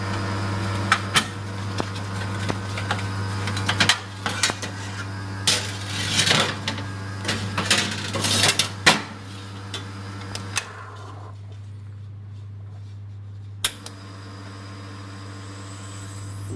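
Clinks, knocks and clatter of metal and crockery over a steady low hum, busy for about the first ten seconds, then thinning out to a single sharp click near the end.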